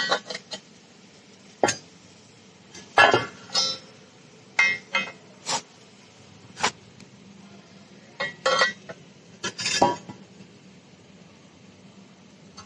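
Pliers and plasma-cut steel pieces knocking and clinking together: about a dozen sharp, irregular metallic knocks, some with a brief ring, over a faint low hum.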